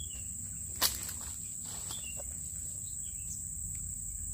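Steady high-pitched insect chorus, with one sharp knock about a second in.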